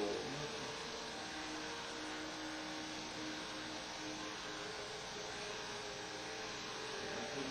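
Steady hum with a hiss behind it, unchanging throughout.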